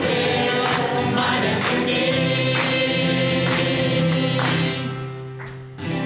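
Mixed community choir singing in harmony with piano accompaniment and a steady beat about once a second. The song ends on a final chord that dies away near the end.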